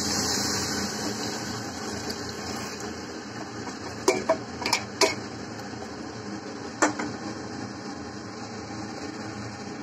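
Soaked chana dal and its water poured from a steel bowl into a pressure cooker of hot fried masala, a brief rush of liquid in the first second or so. Then a steel spoon scrapes and knocks against the steel bowl and cooker rim: several sharp clinks about four to five seconds in and one more near seven seconds.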